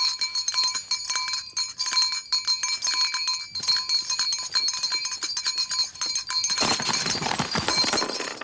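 A servant's bell rung by a pulled bell rope, jangling rapidly and continuously. About six and a half seconds in, the ringing turns into a denser, noisier jangle.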